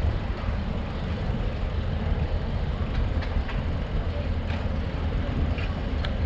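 Riding noise from a moving bicycle: a steady low rumble of wind on the microphone and tyres rolling, with a few sharp clicks or rattles in the second half.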